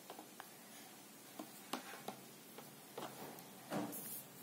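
Faint, irregular clicks and taps of small objects being handled by hand at a table, with a slightly louder knock near the end.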